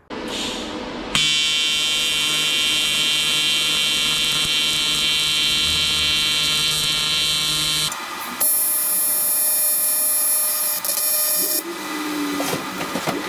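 TIG welder arc buzzing steadily while aluminum bungs are welded onto an aluminum coolant recovery tank, at around 75–90 amps. The buzz starts about a second in and changes in tone about eight seconds in and again near the end.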